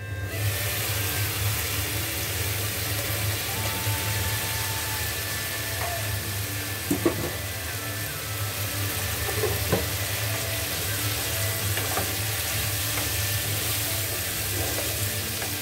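Green banana chunks and spice paste sizzling steadily in a frying pan over a steady low hum, with a few short clacks of a wooden spatula stirring them.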